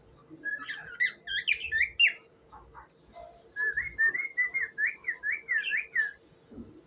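Ino cockatiel whistling: a quick burst of chirpy whistled notes, then after a short pause a rapid run of repeated rising-and-falling notes.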